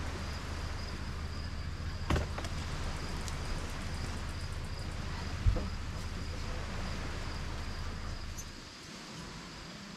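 Metal spatula knocking against a steel grill grate twice while turning burgers and buns over a charcoal fire pit. Beneath it a steady high insect trill, typical of crickets, and a low rumble that drops away near the end.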